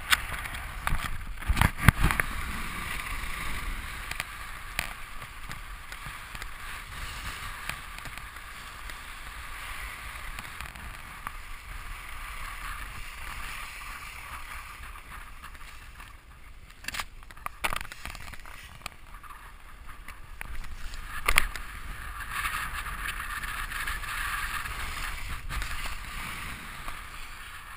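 Skis sliding and turning on groomed snow, a steady hiss, with wind rumbling on the moving camera's microphone. A few sharp knocks: around the start, about 17 seconds in and about 21 seconds in.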